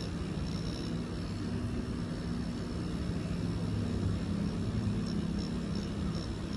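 Permanent-makeup tattoo machine running with a steady low hum.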